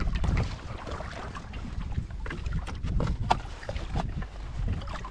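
Small waves lapping and splashing against the legs of a fishing ladder standing in a lake, with scattered small splashes and wind rumbling on the microphone.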